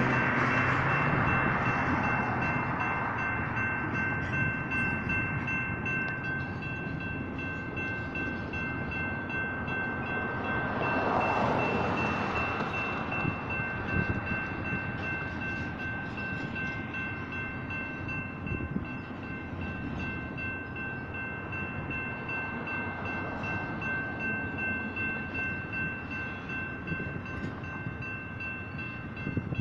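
Double-stack intermodal freight train rolling through a grade crossing, its cars and wheels giving a steady rumble that swells again about eleven seconds in. Over it the crossing's General Signals electronic bells ring on steadily.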